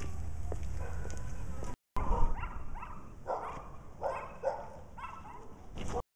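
A dog barking in a run of short yips, about two a second, starting about two seconds in after a stretch of steady low background noise.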